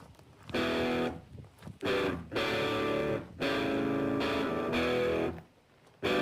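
Outro music led by electric guitar: held chords played in short phrases with brief breaks between them.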